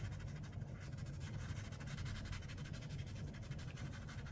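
Watercolor brush stroking and dabbing on paper: soft, scratchy strokes over a steady low hum.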